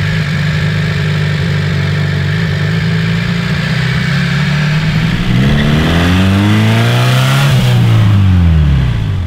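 Volkswagen 2.0-litre ABA inline four-cylinder engine running with no oil in it, pulling the car. It runs steadily at first; about five seconds in the revs climb, then drop back near the end.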